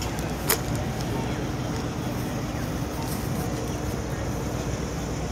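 Steady low rumble of outdoor street ambience, with a single sharp click about half a second in.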